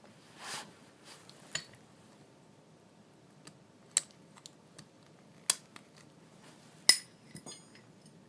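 Scattered metal clicks and clinks as Channellock 927 snap-ring pliers and small steel parts are handled and set down. The loudest, a sharp clink near seven seconds, rings briefly.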